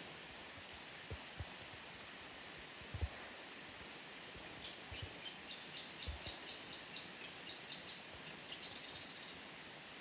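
Cloud-forest birds calling over a steady background hiss: high chirps in the first few seconds, then a run of quick short notes, about four a second, ending in a brief buzzy trill. A few soft low thumps are mixed in, the loudest about three seconds in.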